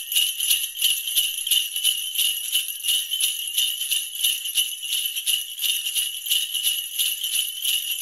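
Sleigh bells shaken in a steady, even rhythm, a bright high jingling with no other instruments.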